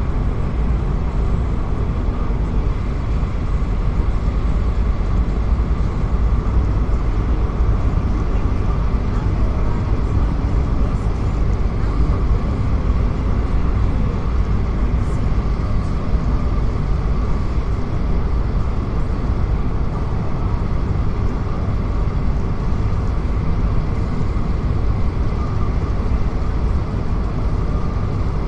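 Steady vehicle noise, a continuous low rumble with a faint steady whine, as of a vehicle travelling at a constant speed.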